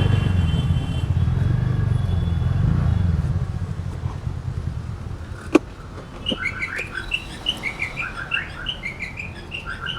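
TVS Ntorq 125 scooter's single-cylinder engine running low and dying away over the first four seconds, then a sharp click about halfway through. A small bird then chirps quickly and repeatedly, several short notes a second.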